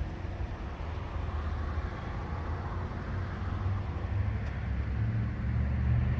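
Outdoor background noise: a low rumble with a hiss above it, growing slowly louder toward the end.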